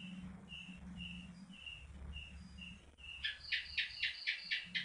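Night-time animal calls: a thin high chirp repeating about twice a second, then a rapid run of about eight loud calls, roughly four a second, starting a little after halfway. A low steady hum lies under the first half.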